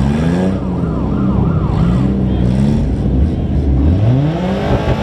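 A fast warbling siren that stops about two seconds in, over several demolition derby car engines idling and revving up and down.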